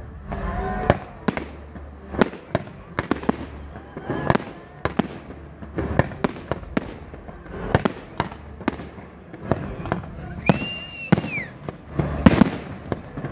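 Aerial fireworks going off: a steady series of sharp bangs and pops from shells bursting, one after another, several in most seconds.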